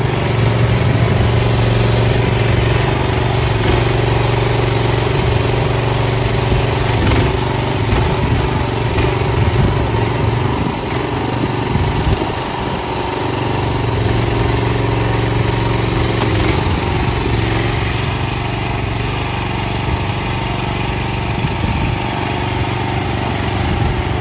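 Dragon PB1000 tracked mini dumper's small single-cylinder petrol engine running steadily as the machine drives and tips its skip, its note sagging and recovering a few times under load.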